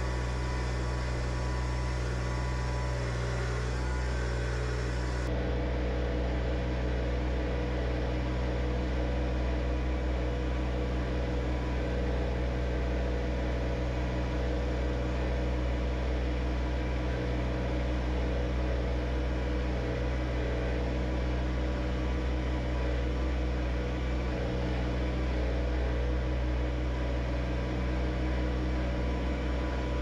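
John Deere 1025R compact tractor's three-cylinder diesel engine running steadily at a constant speed while the tractor mows.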